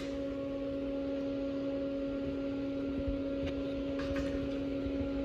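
Steady two-pitched electrical hum of shop equipment with a few faint ticks, after the stick-welding arc's crackle cuts off with a click right at the start.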